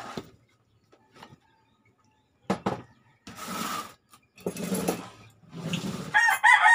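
A few knocks and rustling noises, then a rooster starts crowing near the end.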